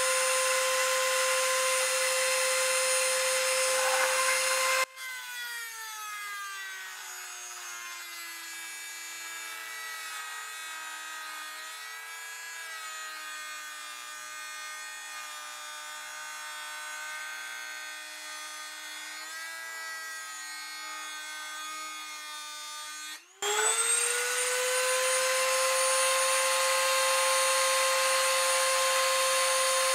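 Dremel rotary tool in a router attachment running at high speed with a steady high whine. About five seconds in it drops abruptly to a quieter, lower-pitched run. About 23 seconds in it spins back up, the pitch rising quickly to the full-speed whine.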